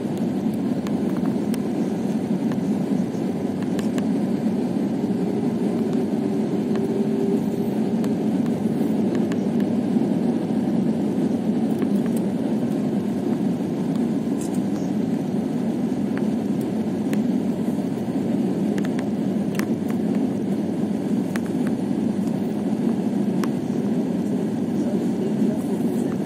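Steady, low noise of engines and airflow inside a jet airliner's cabin in flight.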